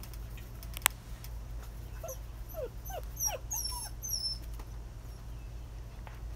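Six-week-old German Shepherd puppies whimpering: a run of short, falling squeaks from about two seconds in to just past four seconds. A single sharp click comes about a second in.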